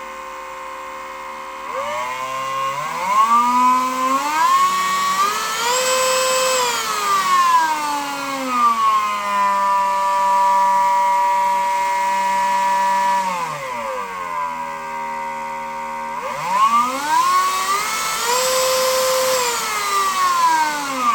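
Ingco 20V cordless mini grinder (rotary tool) running, its high motor whine climbing in pitch twice and falling back, holding steady at a high speed in the middle.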